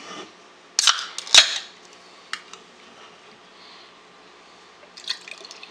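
A can of cherry Coca-Cola being cracked open: a click, then a sharp pop and a short fizz of escaping carbonation about a second in, with a small click a second later.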